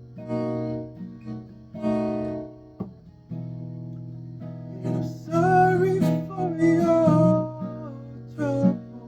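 Strummed acoustic guitar chords ringing out, with a voice singing a phrase over them from about five seconds in.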